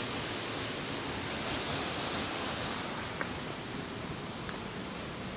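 Waterfall with its steady, even rush of falling water, easing slightly toward the end, with one faint click about three seconds in.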